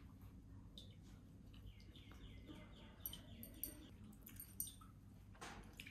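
Near silence: room tone, with a faint bird trill of quick repeated chirps about two seconds in, followed by a few soft clicks.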